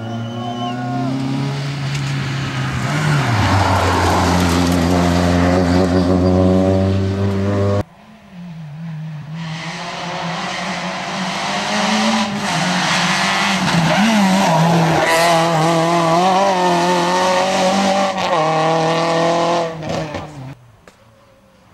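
Two rally cars at full throttle in turn: first a Peugeot 106, then, after a sudden cut, a Renault Clio. Each engine revs hard, its pitch climbing and dropping through gear changes as the car goes by. The sound falls away near the end.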